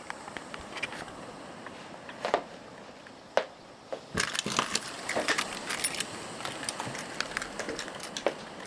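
Scattered light clicks and rattles of small hard objects being handled, growing busier about halfway through.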